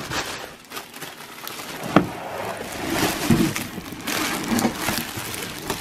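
Plastic packaging bag crinkling and rustling as a wrapped upright carpet cleaner is pulled out of a cardboard box, with one sharp knock about two seconds in.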